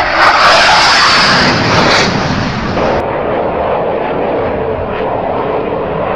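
Jet engine noise of a fighter jet making a low, fast pass, loud for about the first three seconds. The sound then changes abruptly to a steadier, quieter jet noise from a second fighter jet flying low.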